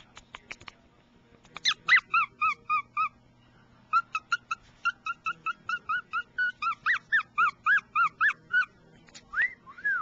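Cockatiel whistling a song: a short run of clear notes, a pause, then a longer run of quick notes at about three to four a second, ending with two longer rising-and-falling whistles. A few sharp clicks come first.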